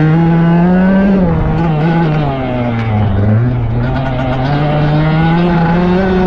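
Dirt bike engine being ridden under throttle: the pitch rises to about a second in, falls away over the next two seconds as the throttle is eased, then climbs steadily again as the bike accelerates.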